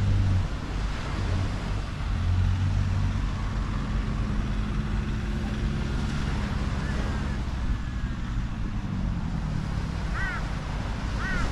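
Four-wheel-drive vehicles driving slowly along beach sand, engines running with a steady low hum that is strongest in the first few seconds, over a constant wash of wind and surf. A few short chirps sound near the end.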